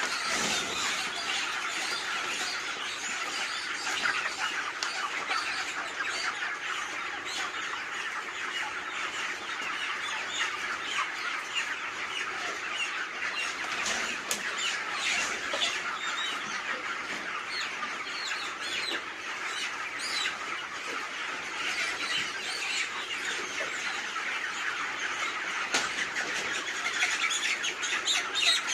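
A large flock of chickens clucking and squawking all at once, a dense unbroken chorus of overlapping calls, with a few brief clicks.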